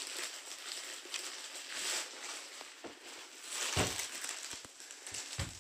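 Rustling and handling noise as a black cotton T-shirt is moved about and spread flat, with a soft bump about four seconds in and another near the end.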